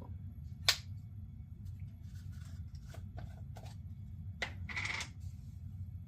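Small clicks and taps of reel parts and a grease container being handled on a workbench: one sharp click about a second in, a few fainter taps, then a click and a short scrape near the end, over a steady low hum.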